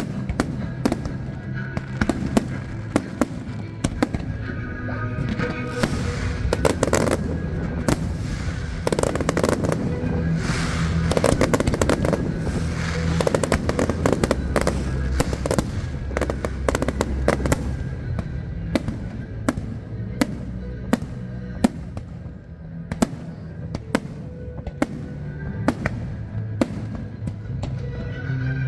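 A fireworks display: a rapid string of sharp bangs and crackles, densest through the middle, over accompanying Disney-themed show music.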